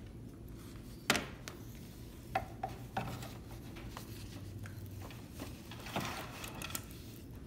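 An embroidery hoop being swapped onto the carriage of a Baby Lock embroidery machine: several sharp clicks and knocks, the sharpest about a second in, with rubbing and handling noise between them.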